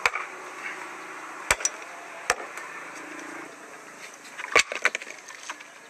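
Hatchet splitting firewood on a wooden chopping block: about seven sharp chops at uneven intervals, with a quick cluster of strikes near the end.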